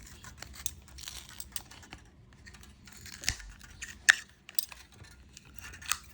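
Scattered small clicks, scrapes and crinkles as a glued-in phone battery is pried and peeled out of its adhesive, with a sharper click about four seconds in.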